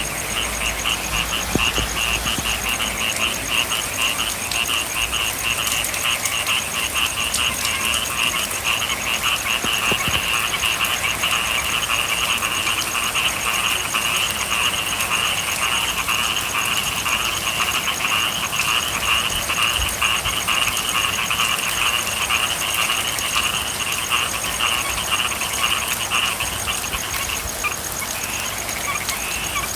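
Dense chorus of frogs calling in rapid pulsing trills, over a steady hiss that fits light rain; the chorus thins a little near the end.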